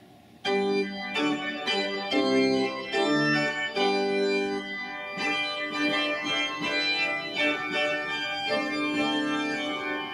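Pipe organ playing a series of sustained chords on its full principal chorus in a second voicing, a softer, more string-like principal, beginning about half a second in.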